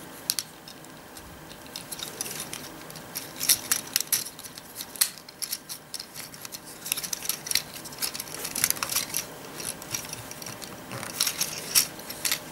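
Plastic joints and panels of a Transformers Prime Robots in Disguise Deluxe Ratchet action figure clicking and rattling as it is handled and transformed: irregular small clicks and snaps, coming in little clusters.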